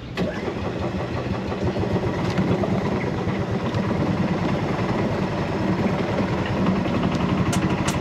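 Golf cart engine starting up and running steadily as the cart begins to move off.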